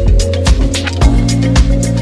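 Background music with a steady drum beat and a pitched bass line.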